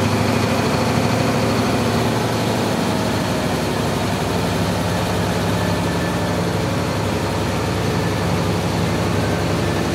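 A motor vehicle's engine running steadily, a low hum that goes on without a break.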